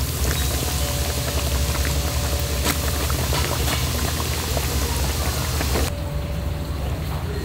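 Cooking oil sizzling steadily in a deep fryer over a steady low hum. The sizzling cuts off abruptly about six seconds in.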